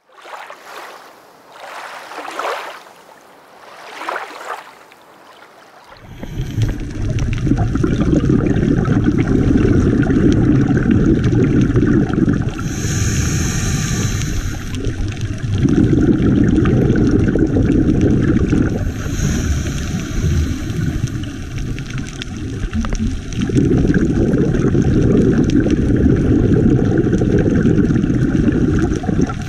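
Scuba diver breathing through a regulator underwater, heard through the GoPro's housing: long, loud rumbling bursts of exhaled bubbles alternating with shorter hissing inhalations, about three breaths. The first few seconds are softer and quieter.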